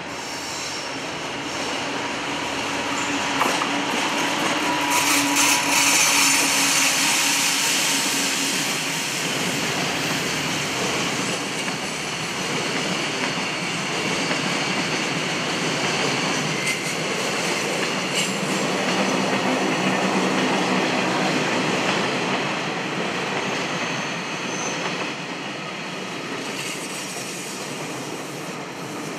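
EF200 electric freight locomotive passing close by, followed by a long train of container flatcars rolling past. It is a steady rumble of steel wheels on rail with scattered clicks over the rail joints. It is loudest as the locomotive goes by a few seconds in and eases slightly near the end.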